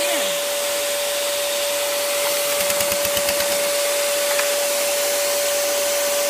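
Homemade two-stroke compressed-air engine running, a steady high whine over a loud hiss of escaping air. A brief rapid pulsing comes through about halfway.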